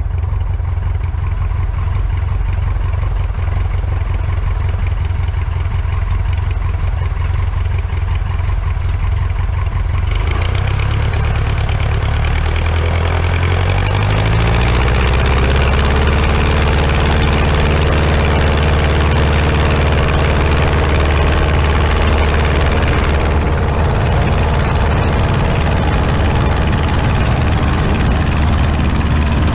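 Aeronca Champ's engine and propeller idling steadily, then revving up over a few seconds about halfway through and holding steady at the higher speed.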